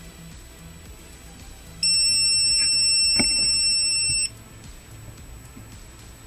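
Multimeter's continuity tester giving one steady, high-pitched beep of about two and a half seconds, starting and stopping sharply, while its probes touch two board pads. The beep signals an unbroken connection between the probed points.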